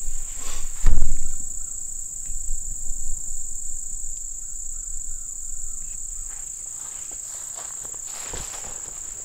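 A steady, high-pitched drone of insects in the grass, with a loud thump about a second in and a few quieter knocks and rustles after it.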